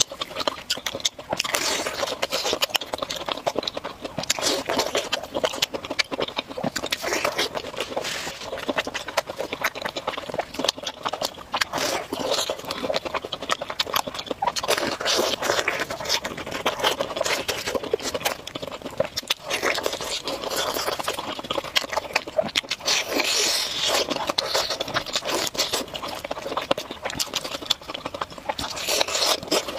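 A person chewing crisp-crusted fried food close to a clip-on microphone: a steady run of irregular crunches, wet chewing and mouth clicks.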